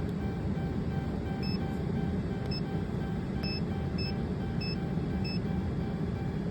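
Dodge Charger engine idling steadily, with six short high electronic beeps between about one and a half and five seconds in as a scan tool erases the check engine code. A faint rapidly pulsing tone runs underneath.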